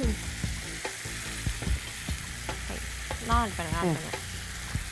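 Masala paste of chilli powder, fennel and garam masala frying in oil in a pan, a steady sizzle with scattered light knocks.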